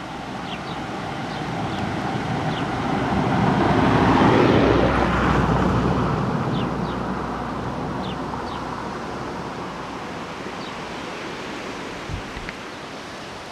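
A vehicle passing by: its noise swells to a peak about four seconds in, then slowly fades away.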